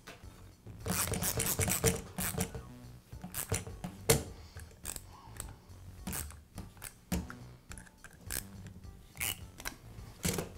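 A hex key and a hand hex driver turn and tighten the steel cap screws on a DeWALT pneumatic finish nailer, making metallic clicking and scraping. There is a dense run of clicks about a second in, then single sharp clicks about once a second as the tool is turned and repositioned.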